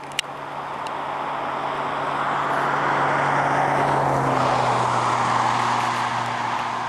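A sharp click at the start, then a vehicle passing on the highway: road noise swells for a few seconds, peaks about halfway and slowly fades, over a low engine hum that drops slightly in pitch as it goes by.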